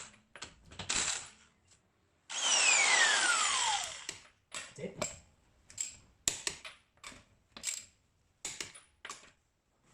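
A power tool in use: a loud run about two seconds in whose pitch falls steadily, then a series of short bursts.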